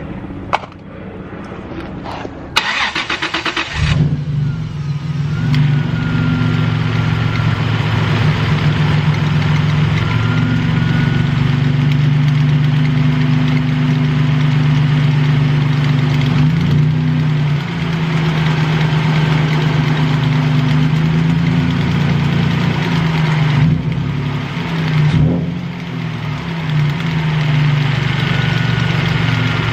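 Toyota Tacoma engine cranked by the starter for about a second and a half, then catching and settling into a steady idle. The running engine carries the ticking, light knocking noise that the owner traces to the accessory-belt idler pulley.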